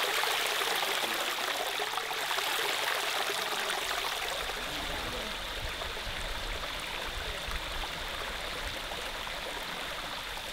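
Shallow river water running over a rock slab, a steady rushing trickle.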